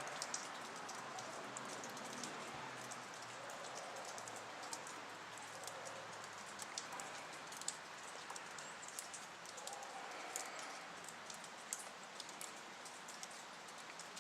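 Ice-coated trees shedding ice and drips: scattered sharp ticks and pattering over a faint steady hiss.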